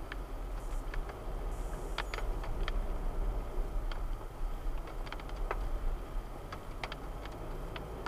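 Car on the move, heard from inside: a steady low rumble with scattered light rattles and clicks.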